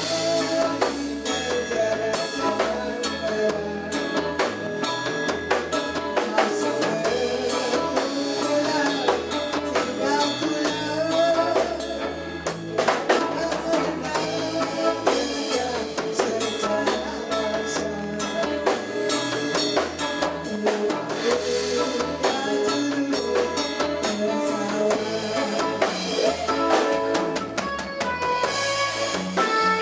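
Small band playing live: electric guitar and bass guitar over a Premier drum kit keeping a steady beat.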